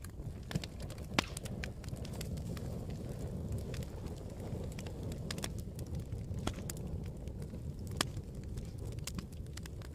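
Campfire burning: a steady low rush of flames with scattered sharp crackles and pops, the loudest about a second in and again near the end.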